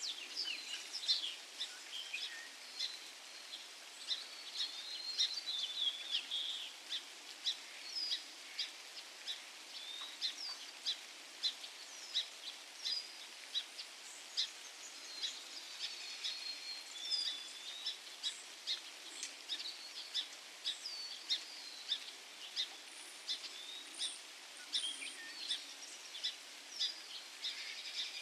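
Birds chirping: a steady run of short, high chirps and brief gliding calls over a faint, steady hiss.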